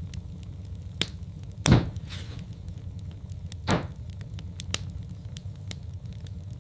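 Wood fire burning in a fireplace: a steady low rumble with scattered sharp crackles, and two louder pops about two seconds apart.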